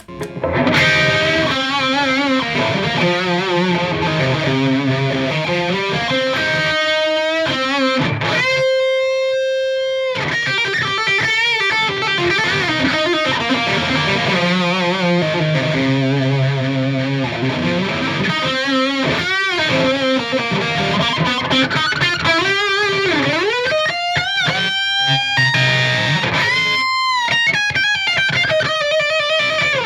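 Overdriven electric guitar, a Strat-style Partscaster on its bridge humbucker through a Marshall JVM210 combo on the orange channel, playing lead lines. It holds one long note about nine seconds in and bends strings near the end.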